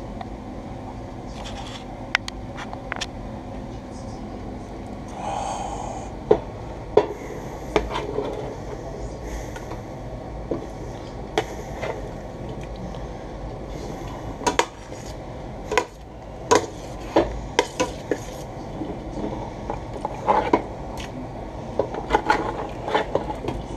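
A metal spoon scraping and clanking against a metal baking tray and the rim of a stockpot as chicken pieces are pushed off the tray into the pot. Irregular clinks and knocks, most frequent in the second half.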